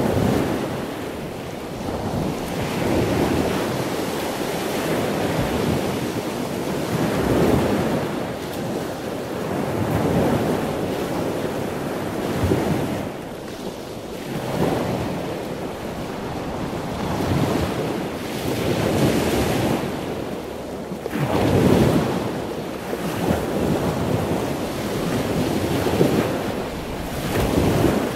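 Sea waves washing ashore: a steady rushing surf that swells and falls back every two to three seconds.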